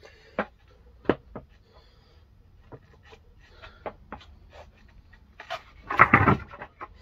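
Skateboard clattering on the floor during a toe pressure varial kickflip: a loud burst of board hits about six seconds in as the tail pops and the board spins, flips and lands. Before it come scattered light knocks and scuffs of shoes settling on the board.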